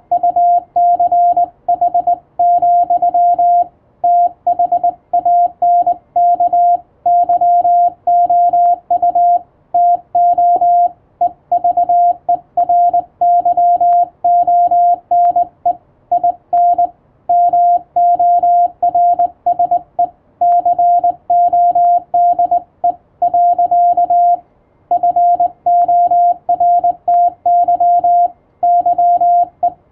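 Morse code sent as a single steady tone, keyed on and off in short and long elements (dits and dahs), with brief pauses between characters and words.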